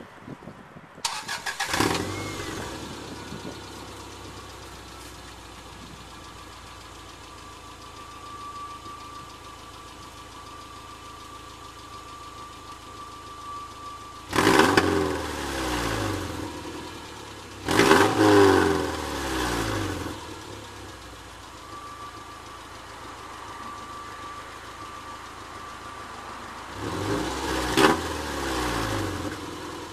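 Subaru engine started, settling to a steady idle, then revved three times, each time dropping back to idle. The exhaust is blowing through a large tear in the rear silencer (back box).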